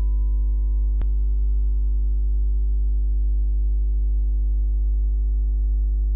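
Background music: a steady ambient drone of held, unchanging tones over a deep bass tone, with a single sharp click about a second in.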